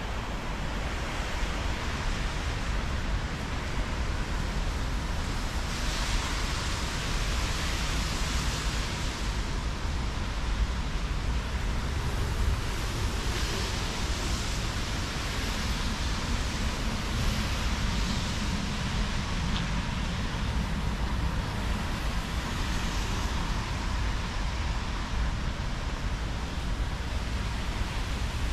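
Rain falling, a steady even hiss over a low rumble, swelling louder for a second or two several times.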